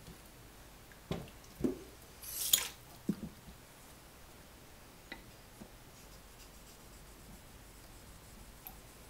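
Natural whetstones being changed in a wooden stone holder. In the first three seconds there are a few knocks of stone on wood and one short, louder scrape as the dark aoto comes out and a pale uchigumori stone goes in. After that there are only a few faint clicks.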